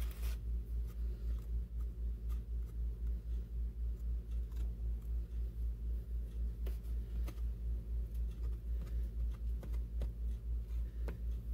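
Light scrapes and taps of a small spatula spreading icing over a cookie cake in its pan, over a steady low hum that throbs about three times a second.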